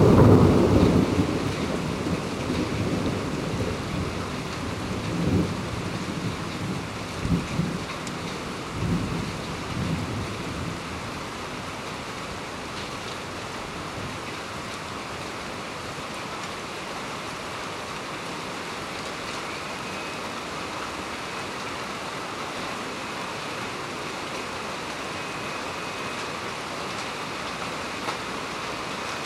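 Heavy rain falling steadily in a thunderstorm. A loud roll of thunder at the start rumbles on in a few swells and dies away over the first ten seconds or so, leaving only the even hiss of the rain.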